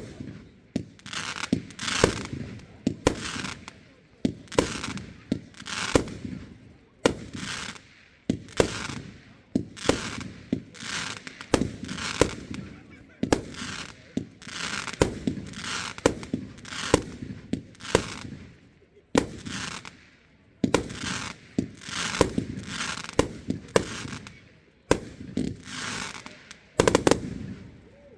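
Fireworks display: a rapid run of sharp bangs from shells bursting overhead, about one or two a second, each followed by a brief hiss.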